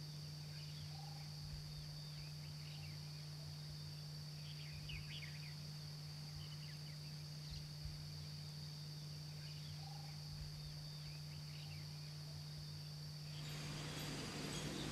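Faint natural ambience: a steady high insect drone and a few short, scattered bird chirps over a constant low hum. A louder hiss comes in near the end.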